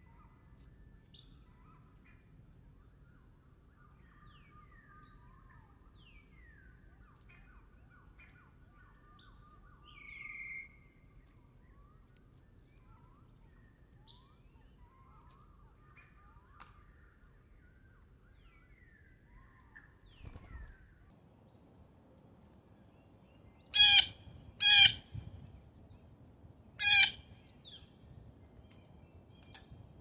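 Blue jay giving three loud, harsh calls, two close together and a third about two seconds later. Faint chirps and twitters of small songbirds come before them.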